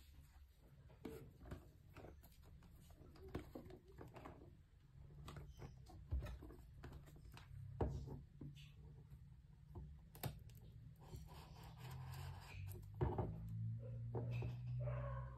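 Faint handling sounds: a small knife scraping and slitting the plastic seal on a cardboard earbud box, the box shifting in the hands, with scattered light taps and clicks. A low hum runs under it from about a third of the way in.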